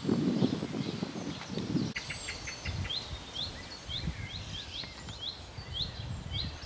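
Outdoor background with a low rumble, loudest in the first two seconds, then birds singing: a run of short, quickly repeated chirps from about three seconds in.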